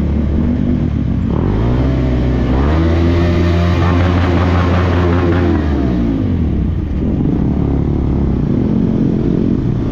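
Motorcycle engine breathing through a Yoshimura R77 full-system aftermarket exhaust: the revs climb about a second in, hold high for a few seconds, then fall away as the throttle closes and settle into a lower cruise.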